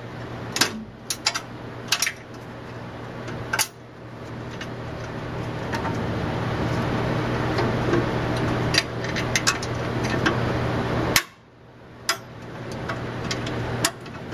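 Metal clicks and clanks from the latch and lid of a chop saw's wheel guard being opened and shut, in a cluster over the first few seconds and another near the end. Under them runs a steady machine hum that grows louder and then cuts off sharply about three seconds before the end.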